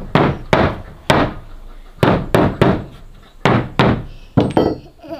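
A hammer striking a wooden wall board: about ten sharp blows, in quick runs of two or three with short pauses between.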